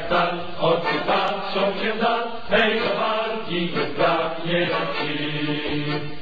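Soundtrack music of voices chanting together, the sung notes shifting every fraction of a second without a break.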